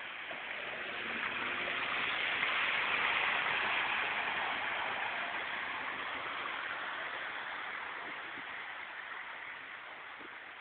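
Floodwater rushing in a flooded street: a steady noisy hiss that swells over the first few seconds and then slowly fades.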